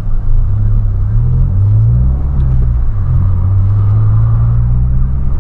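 Volkswagen Polo's engine and exhaust droning low under acceleration, heard from inside the cabin. The revs climb over the first couple of seconds, drop back around three seconds in as for a gear change, then rise slowly again.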